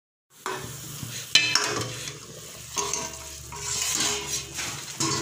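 Chicken soup boiling hard in an open metal wok over a gas flame: a steady bubbling hiss that swells and fades, with a sharp metal clink about a second and a half in.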